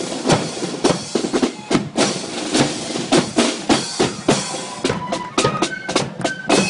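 Marching flute band's snare drums and bass drum playing a fast march beat with rolls. About four seconds in, the flutes come in on a few held notes that step up in pitch.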